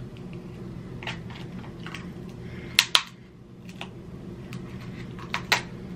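Kitchen scissors cutting into a cooked king crab claw's hard shell: a series of sharp cracks and clicks, the two loudest close together about three seconds in. The thick shell is resisting the blades.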